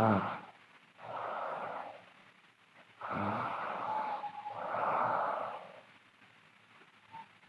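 A girl snoring loudly in her sleep: a low snore and then a long breathy rush of air, repeating in a slow cycle about every four seconds.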